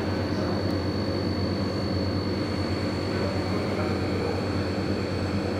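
Steady low rumble and hum with a thin, constant high whine above it.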